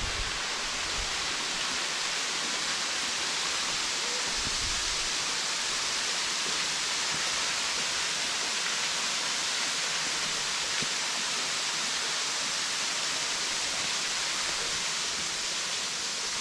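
Steady rushing hiss of a waterfall's falling water, with a faint low thump about four seconds in.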